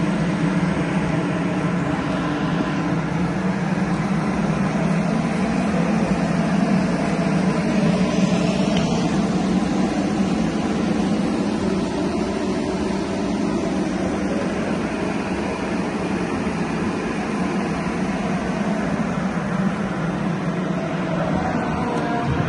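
Steady, low droning hum, machine-like, holding unchanged.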